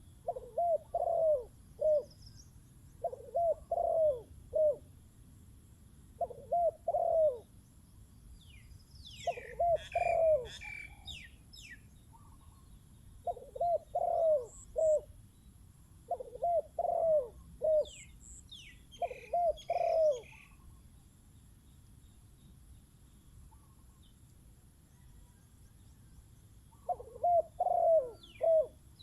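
Spotted doves cooing: short phrases of several low coos, repeated every few seconds, with a pause of about six seconds late on. Small birds chirp high above them in the middle stretch.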